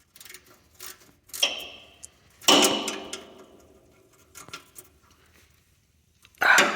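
Metal hand tools and parts clinking: a few light clicks and a knock, then a sharp metallic clank about two and a half seconds in that rings and fades over about a second, followed by faint ticks.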